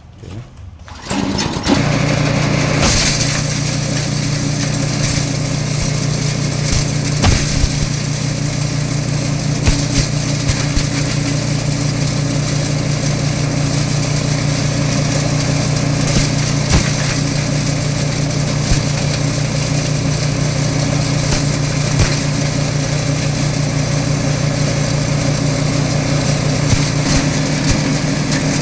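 Engine-driven grass chopper machine running at a steady speed, coming up to speed in the first two seconds, with a steady drone and occasional sharp knocks.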